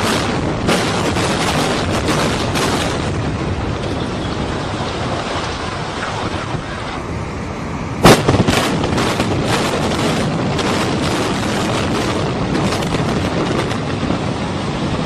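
Controlled demolition of apartment blocks: a string of sharp explosive charge cracks over the rumble of a building collapsing. About eight seconds in, one very loud blast sets off a fresh quick series of charges, followed by the continuous rumble of the next building coming down.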